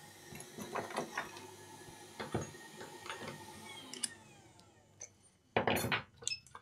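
Light clinks and taps of small hard tools being handled on a workbench, a few scattered knocks, then a louder clattering rustle near the end.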